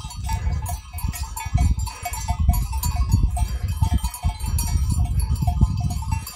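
Bells on a large grazing flock of sheep clinking irregularly throughout, over a low, uneven rumble of wind buffeting the microphone.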